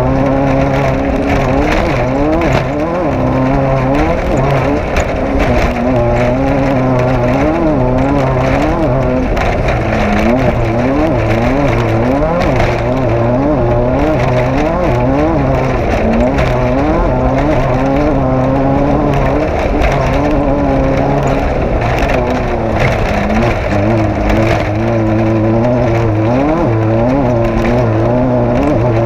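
Off-road race vehicle's engine running hard under rapidly changing throttle, its pitch rising and falling about once a second, with continuous rattling and road noise over it.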